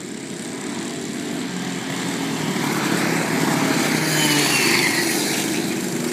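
Comer 60 cc single-cylinder two-stroke kart engines running at speed. One kart grows louder as it passes close about four seconds in, and its high whine drops in pitch as it goes by.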